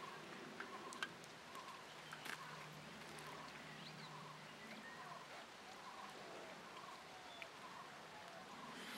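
Faint outdoor ambience around a smouldering wood fire. A few sharp crackles come from the burning wood. A short, animal-like call repeats a little under once a second throughout.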